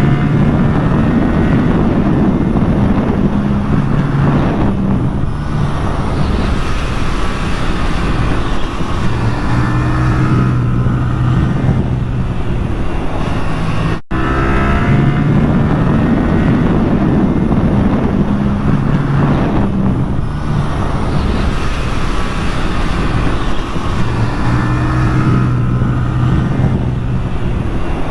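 Yamaha R7 motorcycle engine running through its stock exhaust, the revs rising and falling and holding steady in between. There is a brief cut-out about halfway through.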